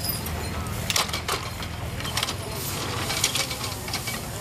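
Cast-iron horse-power sweep's gearing turning under a horse's pull, giving a few irregular metallic clicks and clanks over a steady low rumble of the driven machinery.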